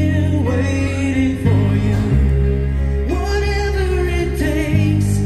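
A song with a singer's voice over held bass notes, played from a cassette on an Akai HX-1 stereo cassette deck through an Akai AM-U01 integrated amplifier and its loudspeakers.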